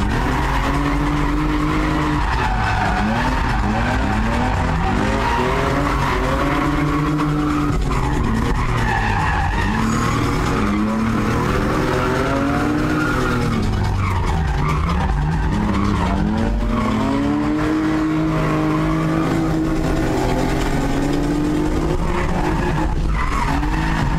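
BMW E36 drift car's engine revving hard, its pitch climbing and dropping again every few seconds as the car is thrown through slides, with tyres squealing, heard from inside the cabin.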